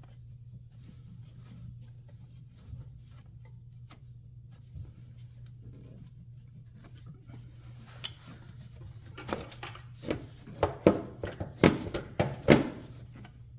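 Honda Accord rubber air intake tube being worked onto its fitting by hand: faint rubbing and ticks at first, then a run of sharp clicks and knocks in the last five seconds, over a steady low hum.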